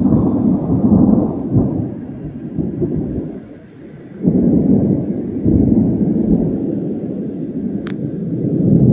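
Thunder: a loud clap that breaks suddenly at the start and rolls on in deep rumbles, swelling again about four seconds in and once more near the end.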